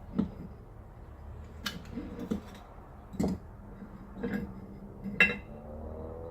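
Metal parts clinking and knocking against each other and the bench, about seven separate irregular knocks, over a steady low hum.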